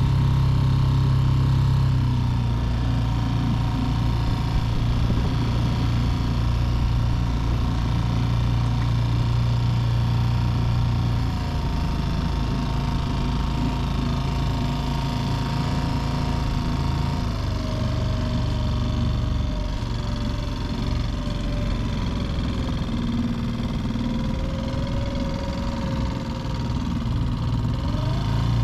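Mercury F 3.5 single-cylinder four-stroke outboard motor running steadily, pushing an inflatable boat along. Its tone and loudness change slightly about two seconds in and again about eleven seconds in.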